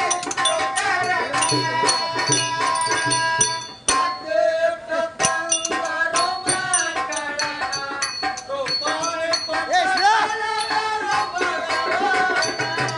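Live Kannada folk devotional song: men's voices singing over a held steady tone, with hand cymbals clicking and a drum beating underneath. The music dips sharply for a moment about four seconds in, then carries on.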